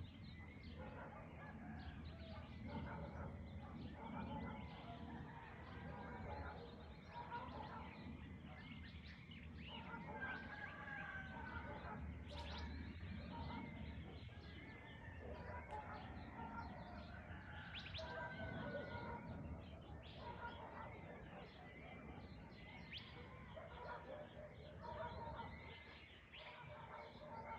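Dawn chorus: many birds chirping and calling over one another, with domestic fowl calling among them.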